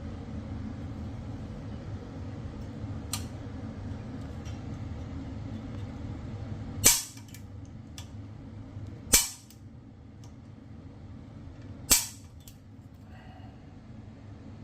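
Three sharp clacks, one every two to three seconds, over a low steady hum.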